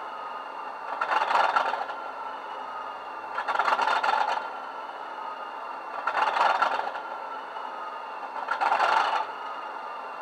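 Model class 37 locomotive's DCC sound decoder playing the English Electric diesel idling at a standstill, heard through the model's small speaker: a steady engine background with a rushing hiss about a second long roughly every two and a half seconds, four times.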